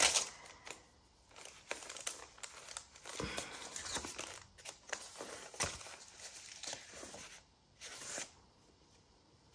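Pages of a handmade paper junk journal being turned and handled: irregular paper rustling and soft flaps, with a last page flip about eight seconds in.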